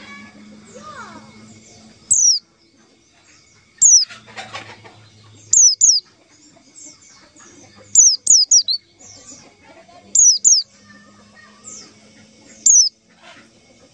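White-eye (pleci) calling: short, high notes that sweep sharply downward, one at a time or in quick runs of two or three, every couple of seconds. Fainter twittering of other birds sits underneath.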